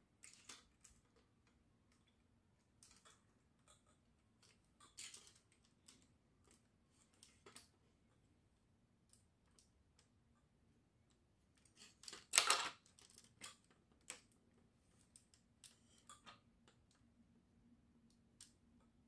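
Faint, scattered clicks and light rattles of a LEGO Clone Turbo Tank's plastic parts being handled, with one louder clatter about twelve seconds in.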